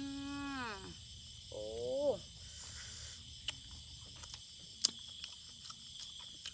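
A woman gives two short wordless vocal sounds, the first falling away and the second rising, while picking and eating snail meat off a toothpick. Sharp mouth clicks and smacks follow as she eats, the loudest about five seconds in, over steady high insect chirring.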